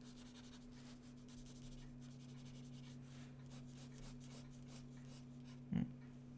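Pencil sketching on paper: a run of short, faint scratchy strokes, with one soft bump near the end and a steady low hum underneath.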